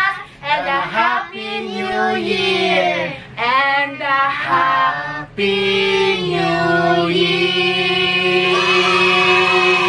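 A woman and children singing a Christmas carol together, in short phrases at first and then holding long notes from about five seconds in.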